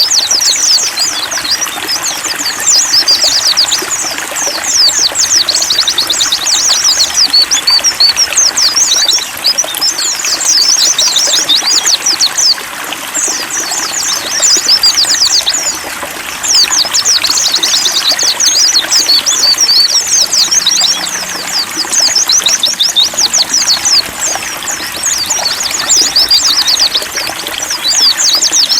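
A flock of white-eyes (pleci) twittering with fast, high chirps, many overlapping, over trickling water.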